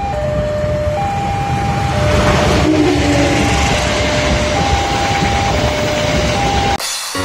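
A GE diesel-electric locomotive and its passenger carriages passing close by, the engine and wheel noise swelling about two seconds in as the train draws level. Over it, a two-tone warning alarm, typical of a railway level crossing, alternates between a lower and a higher tone about once a second. Near the end the train sound cuts off abruptly and piano music begins.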